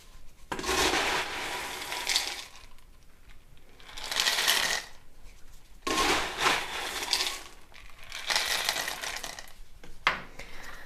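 Expanded clay pebbles (Plagron) poured into a clear plastic pot around a plant's roots, rattling against each other and the pot walls in four pours of a second or two each.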